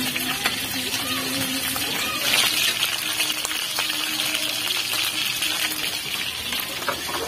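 Grouper (lapu-lapu) slices frying in hot oil in a pan, a steady sizzling hiss with a few faint ticks, a little louder about two seconds in. The fish is being fried first, only half-cooked, before it goes into a broth.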